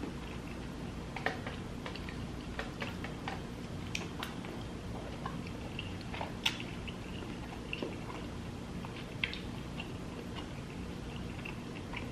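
Close-up eating sounds: wet chewing with irregular mouth smacks and clicks while eating seafood in butter sauce, over a steady low hum.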